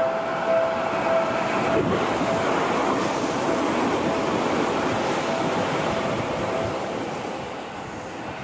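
Seibu 001 series 'Laview' limited-express electric train running past close by, its wheels and body rushing louder as it passes and then fading. A two-tone bell rings on a steady beat under it, dying away as the train goes by.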